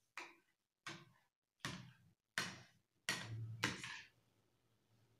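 Metal spoon stirring thickened HPMC gel in a small bowl, clicking faintly against the bowl about every three-quarters of a second, six strokes in all. A brief low hum joins about three seconds in.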